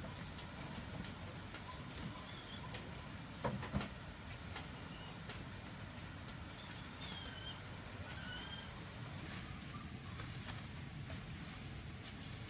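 A couple of sharp knocks about three and a half seconds in, then a few faint bird chirps over a steady low background hum.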